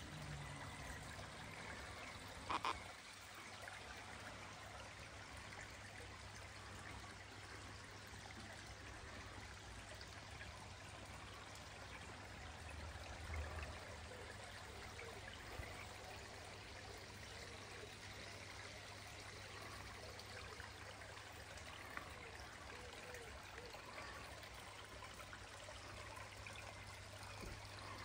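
Faint, steady trickle of water running down a rocky garden stream into a koi pond, with a brief knock about two and a half seconds in.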